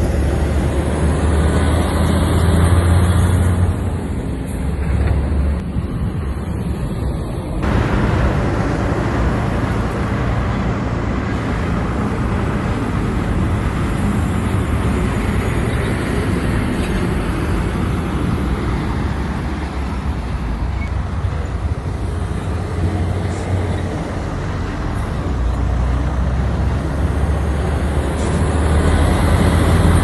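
Heavy diesel engine of earthmoving machinery running steadily, swelling louder about two to three seconds in and again near the end.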